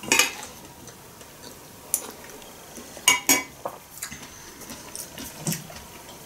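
Metal spoon clinking and scraping against a ceramic soup bowl: a few separate sharp clinks, one near the start, one about two seconds in, and a quick pair about three seconds in, with lighter taps after.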